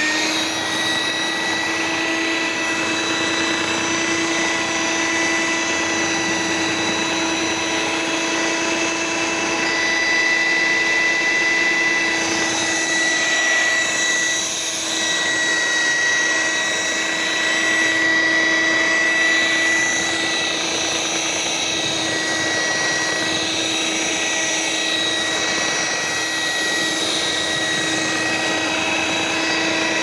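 A vintage Hoover F4225 shampoo polisher's electric motor runs at a steady speed, spinning its brushes on a wet, shampooed surface, with a steady whine.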